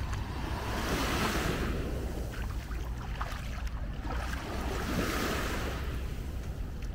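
Small waves washing up onto a sandy beach, surging twice, with a low wind rumble on the microphone.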